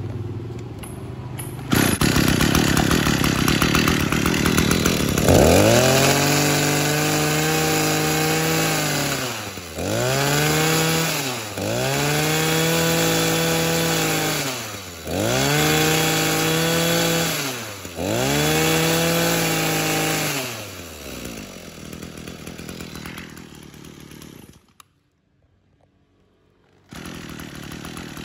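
Kioritz (Echo) SRE2355G 23cc two-stroke brush cutter engine running at idle, then revved up five times with the throttle, each time rising, holding and falling back. It then drops to idle and stops near the end.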